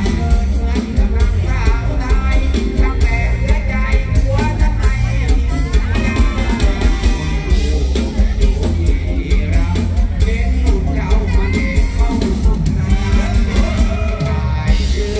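Live mor lam band music played loud through a stage PA, with a heavy bass beat and a voice singing over it.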